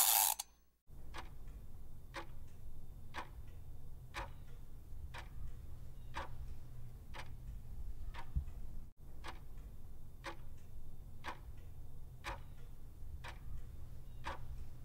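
Countdown-timer sound effect: a clock ticking about once a second over a low steady hum. A brief bright sound effect comes at the very start.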